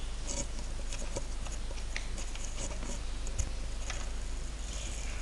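Computer keyboard keystrokes: a few scattered, irregular clicks over a steady low hum and hiss.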